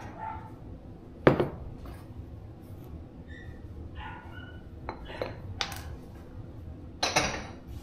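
Kitchen utensils being handled: a sharp knock about a second in, then light clinks of a metal measuring spoon against a small ceramic bowl while salt is measured out, and a short hiss near the end.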